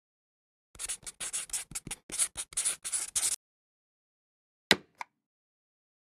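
Title-card sound effects of scribbling on paper: a quick run of scratchy pencil strokes lasting about two and a half seconds. About halfway through comes a single sharp stamp thump, with a faint second knock just after it.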